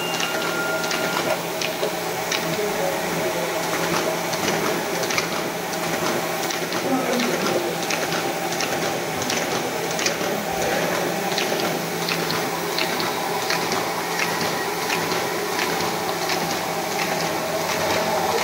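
Paper leaflet folding machine with a cross-folder running in production, folding sheets at about 5000 an hour. It gives a steady mechanical whir with a dense, uneven patter of short clicks.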